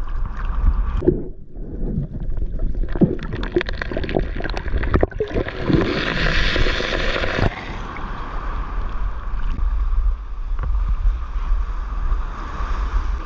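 Seawater splashing and sloshing around an action camera as a swimmer moves at the ocean surface, with irregular clicks and splashes at first. About six seconds in comes a brighter hissing rush that cuts off sharply, followed by the steady rush of waves breaking in the shore break, with a strong low rumble of water and wind on the microphone.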